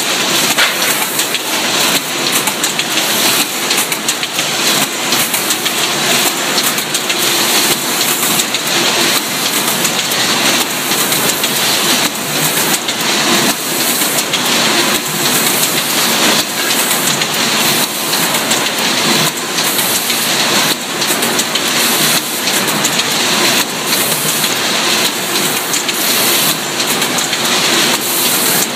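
FH18-90ZD automatic can body welding machine running in production, tinplate can bodies feeding through: a loud, steady, dense crackle full of small rapid clicks.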